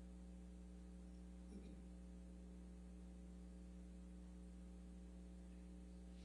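Near silence: a steady low hum, with one faint brief rustle about one and a half seconds in.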